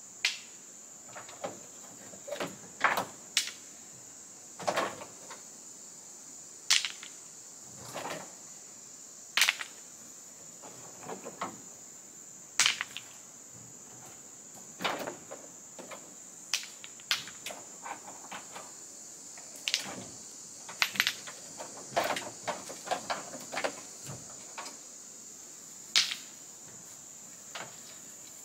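Steady high-pitched drone of insects, with irregular sharp knocks and clatters every second or so.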